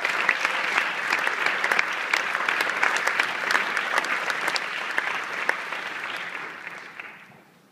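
Audience applauding in a large hall: dense clapping with sharp individual claps close by, dying away near the end.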